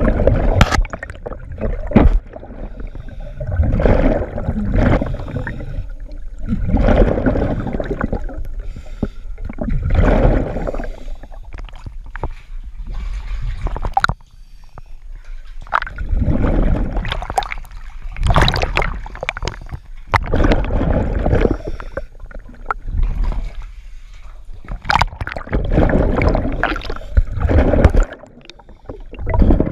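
A scuba diver's breathing heard underwater: gurgling bursts of exhaled bubbles recur about every two to three seconds, with a few sharp knocks of gear in between.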